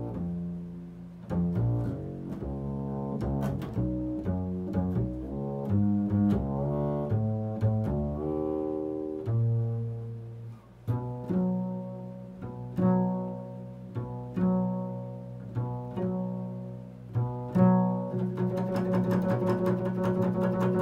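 Solo double bass played pizzicato in an improvised line of plucked notes, with a quick run of notes a few seconds in and a fast, repeated plucking near the end.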